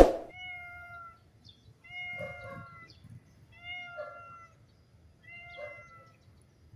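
A hungry tuxedo cat meowing four times, one even call about every second and a half. A sharp knock at the very start is the loudest sound.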